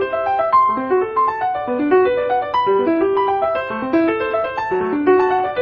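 Background piano music with a quick, steady flow of notes.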